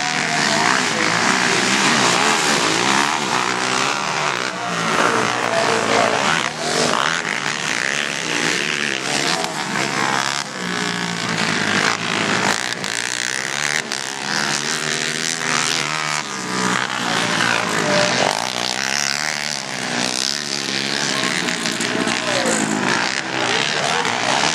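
Several racing ATV (quad) engines running hard on a dirt track, their pitch repeatedly rising and falling as they rev.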